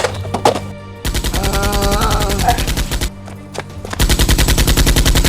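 Two bursts of rapid automatic gunfire, a dubbed machine-gun sound effect, at roughly a dozen shots a second: the first about a second in, lasting two seconds with a drawn-out voice over it, the second starting about four seconds in.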